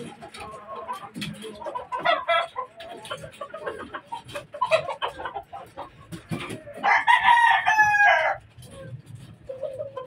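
A caged rooster crows once, loudly, about seven seconds in, the call lasting about a second and a half. Before it, chickens give shorter clucking calls, with scattered knocks and clatter.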